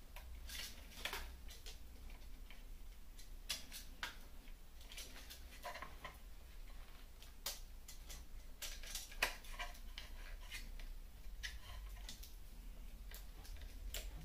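Irregular light clicks and taps, scattered unevenly with gaps between them, over a faint steady low hum.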